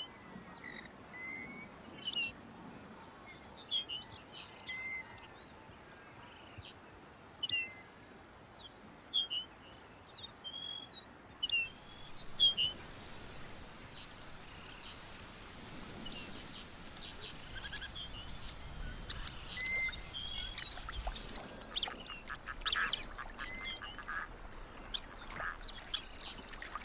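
Birds calling on the tundra: many short, separate calls scattered throughout. A steady hiss lies behind them from about halfway through.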